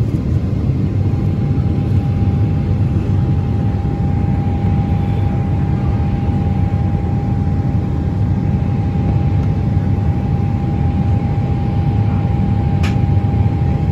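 Boeing 777 engines at climb power just after takeoff, heard inside the passenger cabin as a steady, loud, deep rumble. A steady whine sits over it from about a second in, and there is a single click near the end.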